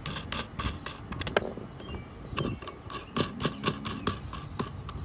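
Small nuts being turned by hand off the threaded studs of a third brake light housing, giving a string of light, irregular clicks and ticks.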